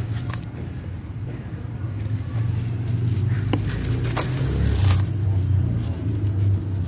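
Wet gritty sand-cement chunks squeezed and crumbled by hand in water in a metal basin, giving a few short gritty clicks and scrapes, over a steady low rumble.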